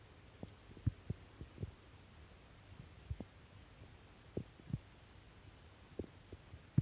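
Irregular soft low thumps, about a dozen at uneven spacing, over a faint steady low hum.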